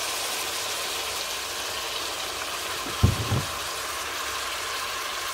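Pork cubes sizzling steadily as they fry in rendered pork fat in a stainless steel pot. A short low thump comes about three seconds in.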